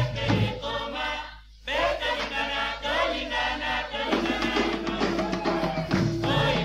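Background music with group singing over a bass line, briefly dropping away about a second and a half in.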